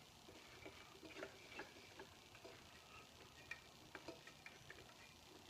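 Faint, irregular light clicks and taps of metal fittings being handled and fitted as a cam lock coupling is put on, with near silence between them.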